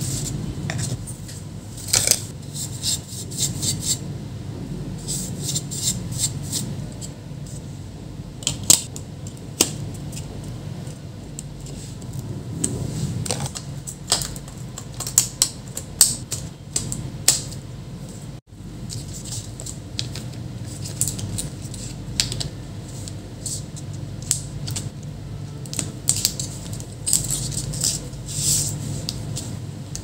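Scattered small clicks and taps of laptop parts being handled and fitted into the plastic bottom case: the motherboard with its heat-pipe heatsink and the battery being set in place, over a steady low hum.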